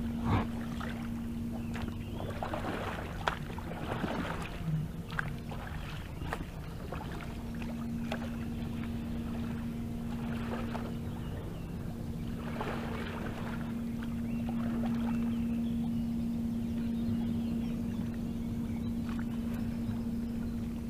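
Double-bladed paddle strokes dipping into lake water from an inflatable packraft, a splash every couple of seconds that grows fainter as the boat moves off. A steady low hum runs underneath, breaking off briefly twice.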